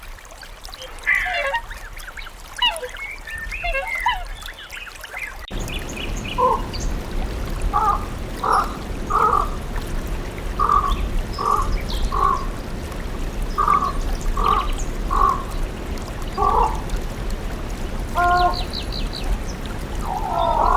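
Animal calls: a few seconds of scattered calls, then, after a change of recording about five seconds in, a series of short repeated calls less than a second apart, with a different call near the end.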